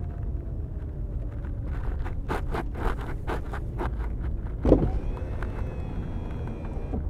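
Cabin noise of a Chrysler Crossfire driving slowly: a steady low rumble of engine and tyres, a run of light clicks and rattles about two to four seconds in, and one louder thump just before five seconds in.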